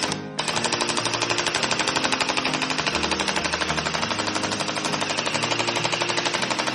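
Toy assault rifle firing on automatic: a steady rapid-fire rattle of about ten shots a second, with a brief break just after the start.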